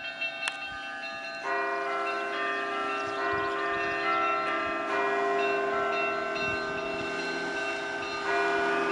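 Several Orthodox church bells ringing together in a peal, many steady bell tones sounding at once. Fuller, louder ringing starts about a second and a half in and swells again near the end.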